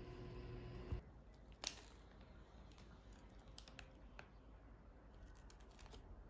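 Quiet, with faint scattered small clicks and crinkles from a plastic piping bag being squeezed to pipe ganache into small baked cakes, one sharper click shortly after the start. A low steady hum in the first second cuts off abruptly.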